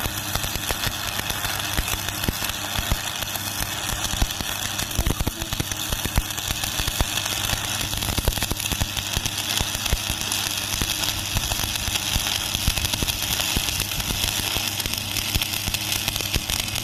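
Electric arc welding: the arc crackling and spitting continuously, over a steady low electrical hum from the welding machine.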